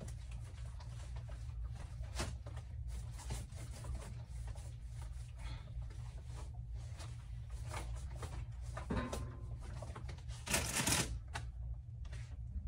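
Irregular crinkling and rustling of snack packaging and clothing as items are handled and tucked into trouser waistbands, with a louder rustle near the end, over a steady low hum.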